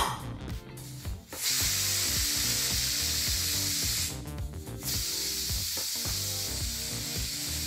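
Prestige Svachh pressure cooker whistling twice: steam jets out hard under the lifted weight in two long hisses of about two and a half seconds each, the first starting about a second and a half in. The two whistles mean the cooker has reached full pressure twice, the sign that the chickpeas are cooked. A short clink at the start as the weight is set on the vent.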